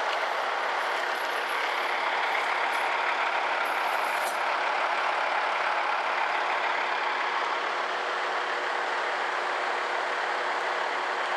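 Kenworth T800 lowbed truck's diesel engine running steadily as it hauls a Cat 325D excavator on its trailer, a continuous heavy drone, with a faint high squeal in the first few seconds.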